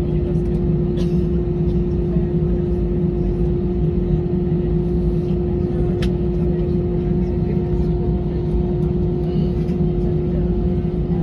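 Airbus A320's CFM56 jet engines running at taxi idle, heard from inside the cabin over the wing: a steady hum over a low rumble, with a single short tick about six seconds in.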